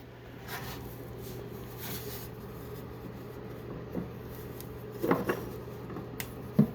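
A few light knocks and clunks, about four and five seconds in and again near the end, over a steady low hum.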